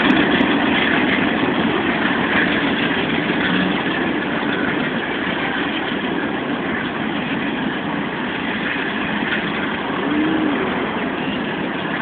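Diesel locomotive engines running steadily and slowly fading as the locomotives, running light without cars, pull away, mixed with road traffic.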